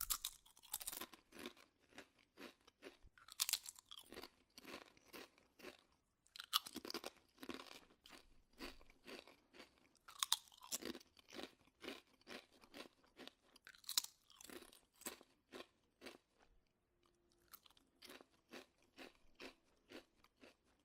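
Close-up potato chips being bitten and chewed: repeated crisp crunches in clusters, with a sharper bite every few seconds followed by a run of softer chewing crunches.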